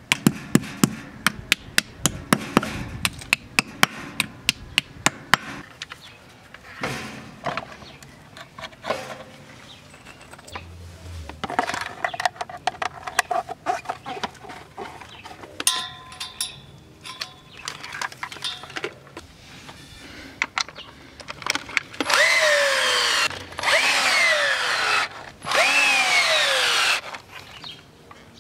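Rapid sharp taps for the first five seconds or so, then scattered handling knocks. Near the end come three loud bursts of a power drill/driver, its pitch falling in each as it slows under load while it fastens the gate motor's base to the concrete pad.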